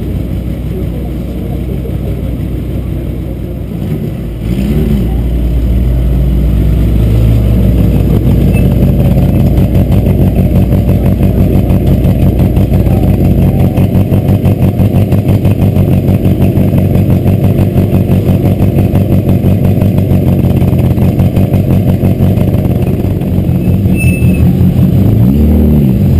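Rally car engines running close by, with a fast, steady pulsing idle through the middle. An engine revs up and down about four seconds in and again near the end as cars pull forward in the queue.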